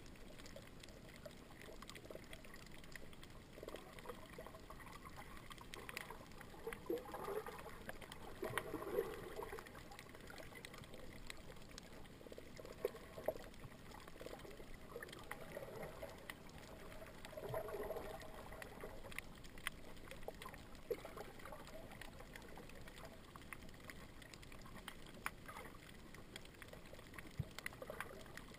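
Faint, muffled underwater noise heard through a camera's waterproof housing, with scattered small clicks and a few short gurgling patches.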